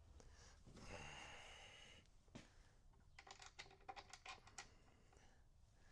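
Faint handling sounds: a soft scraping rub, then a quick run of light clicks as T-nuts are slid into a mounting track.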